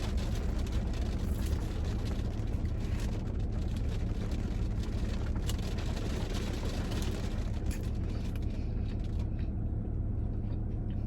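A steady low rumble with a scatter of small clicks and crackles from chewing and handling the food.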